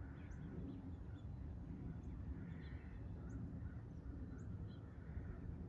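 Quiet outdoor ambience: a steady low rumble with faint, short high bird chirps about once a second.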